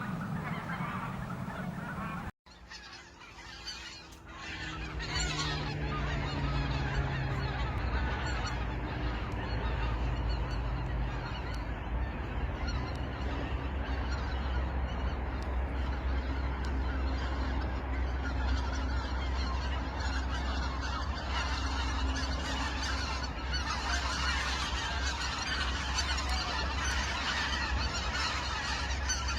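A flock of wild geese honking, many calls overlapping, with a steady low rumble underneath. About two seconds in the sound cuts out briefly. It resumes with a few separate calls that quickly build into dense flock calling, which grows louder near the end.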